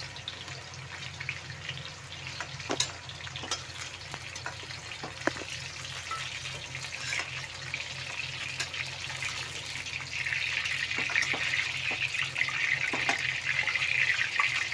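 Hot oil sizzling in a metal kadhai as fried cauliflower florets are lifted out with a spoon, with scattered clicks and scrapes of the spoon against the pan. The sizzle grows louder about ten seconds in, over a steady low hum.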